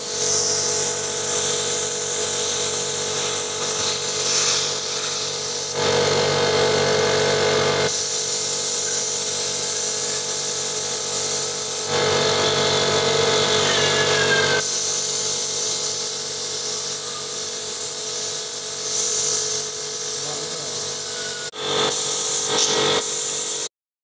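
Gravity-feed paint spray gun hissing as it sprays paint onto sheet metal, over a steady motor hum; the hiss swells louder for a couple of stretches, then everything cuts off suddenly near the end.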